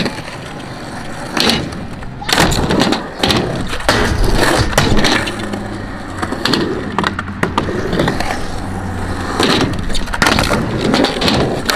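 Skateboard wheels rolling and rumbling on concrete, with several sharp clacks of the board hitting the ground: tail pops and landings.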